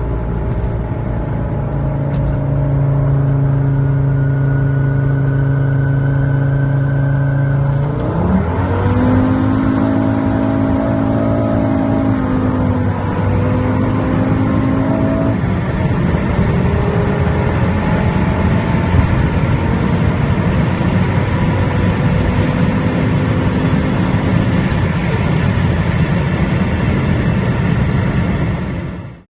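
Volvo car engine running at steady revs, then revving up sharply about eight seconds in and pulling on at higher revs with road noise; the sound cuts off abruptly near the end.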